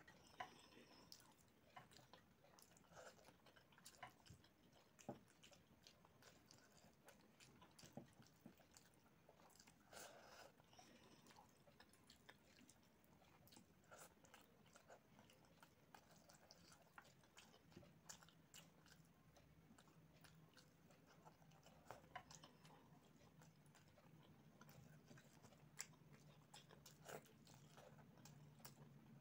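Faint close-up chewing of rice and chicken curry eaten by hand: soft, irregular mouth clicks and smacks. A faint low hum comes in a little past halfway.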